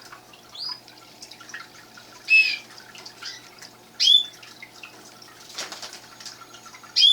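Canaries in an aviary cage chirping: a series of short call notes that sweep in pitch, a few much louder than the rest. There is a brief rustle a little past the middle.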